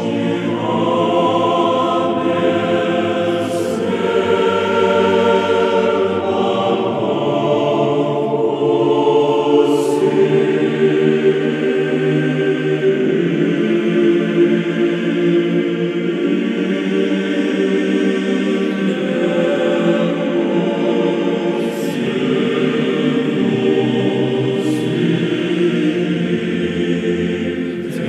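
A choir singing slow, chant-like music in long held notes.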